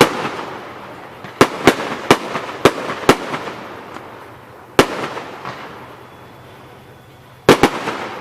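Aerial fireworks bursting with sharp bangs, each trailing off in an echo: one right at the start, a quick run of five over the next couple of seconds, another near the middle, and a close pair near the end.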